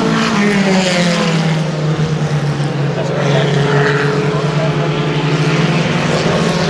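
Vintage Lotus race car's four-cylinder engine running steadily at a held speed.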